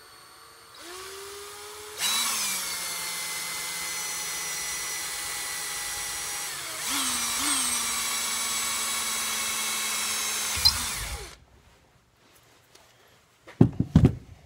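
18-volt Black & Decker Firestorm cordless drill boring a pivot hole through a small metal part held in a vise. The motor starts softly about a second in, runs at full speed from two seconds, changes pitch partway through and stops about eleven seconds in. A few sharp clanks follow near the end.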